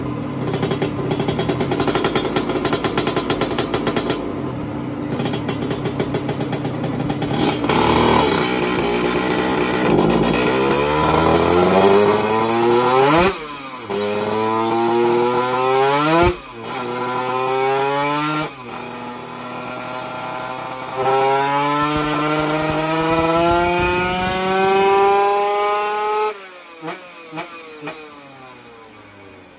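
Racing motorcycle engine making a dyno pull. It runs rough and uneven for the first several seconds, then the revs climb steadily, with three brief cuts at the gear changes, and go on climbing until the throttle shuts off about 26 s in. A few short throttle blips follow, and then the engine winds down.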